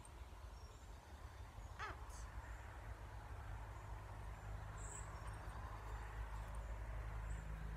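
Outdoor garden ambience with a steady low rumble, broken by a single short bird caw about two seconds in and a brief high chirp about five seconds in.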